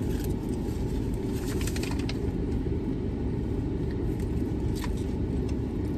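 Steady low rumble inside a parked car's cabin, with a few faint light clicks about two seconds in and again near the five-second mark.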